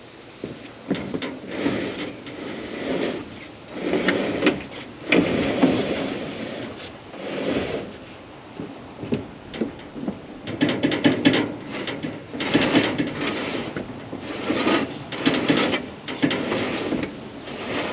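IBC totes being slid and shoved across a wooden trailer deck: repeated scraping of the tote bases on the boards, with knocks and rattles from the steel cages.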